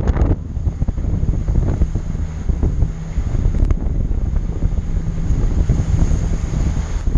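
Wind buffeting the microphone on a moving fishing boat, with the boat's engine humming steadily underneath. A single sharp click about three and a half seconds in.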